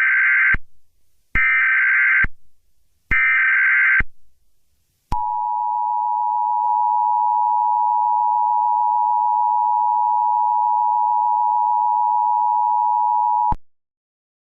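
Emergency Alert System tone sequence: three short bursts of SAME header data about a second apart, then the two-tone attention signal held steady for about eight seconds before it cuts off. The sequence announces a severe weather alert that is about to be read.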